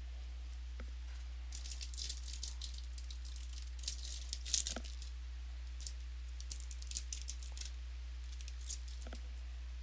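Trading cards and pack wrappers being handled: short, scattered rustles and clicks of cards sliding and flicking. A steady low electrical hum runs underneath.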